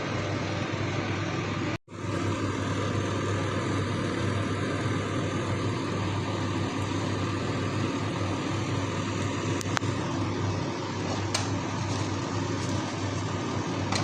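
Steady rushing noise with a low hum, with a few sharp clicks about ten and eleven seconds in. The sound drops out for a moment about two seconds in.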